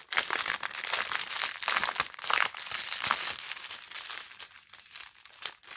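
Clear plastic bag crinkling as it is handled, a dense, irregular crackle of thin packaging with rhinestone packets inside.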